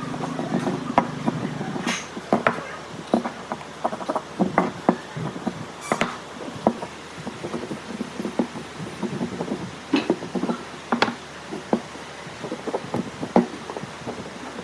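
Workshop hand work on wood: irregular light taps, clicks and knocks, with a low hum that dies away in the first second or two.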